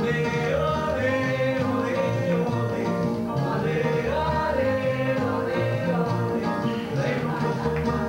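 Live band playing upbeat soca with electric bass and keyboards, and a man singing a melody over them.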